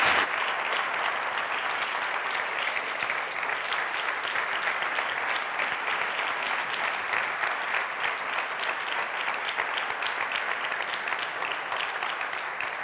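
An audience applauding: steady, dense clapping that tapers off near the end.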